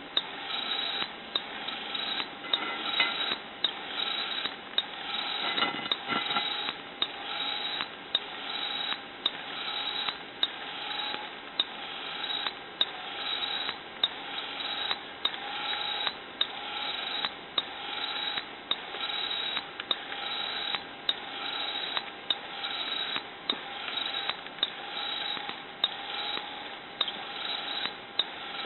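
Homemade hose-reel irrigation machine running: a steady rushing noise under a sharp mechanical click that repeats evenly, a little more than once a second.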